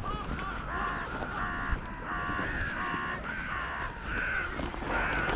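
A crow cawing, a run of about half a dozen short caws in quick succession.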